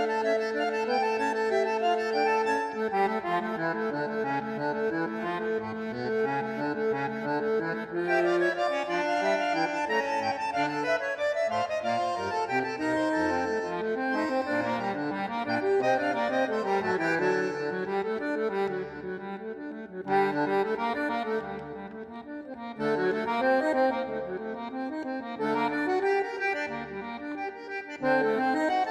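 Background music led by an accordion, with held chords and a moving melody.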